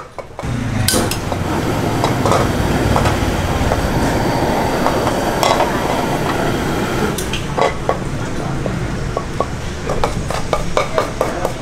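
Tongs and a wooden spatula scraping and clinking against a metal frying pan as sticky seafood sauce is stirred and pulled into strings. Under it, a steady loud rushing noise sets in about half a second in.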